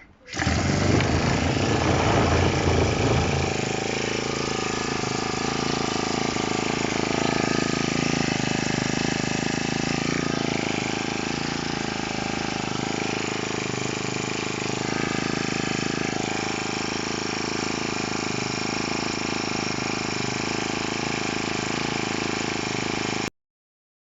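Freshly reassembled Honda GX25 four-stroke engine starting up and running, a little louder for the first few seconds and then settling into a steady run. It cuts off suddenly near the end.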